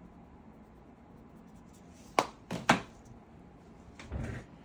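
Small hard objects being handled: two sharp knocks about half a second apart, then a softer, duller thud.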